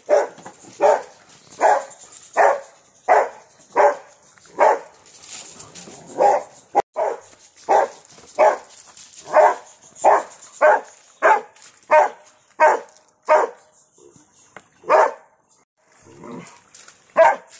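A dog barking over and over, about one bark every two-thirds of a second, with a short break a little before the end.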